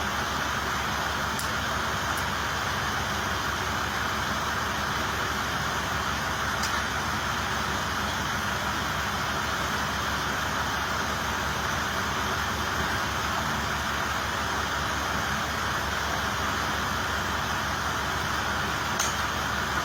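Steady background noise of running machinery, an even hum and hiss with a fast low throb, unchanging throughout, with a few faint clicks.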